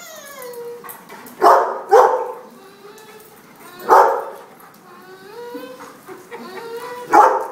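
Dog barking four times: two sharp barks close together about a second and a half in, one around four seconds, and one near the end, with thin high whining that slides up and down between the barks.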